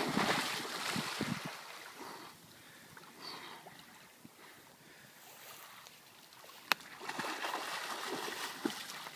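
A person plunging into pond water with a loud splash, the water churning and settling over a couple of seconds. Near the end comes a second stretch of splashing as the swimmer dives under.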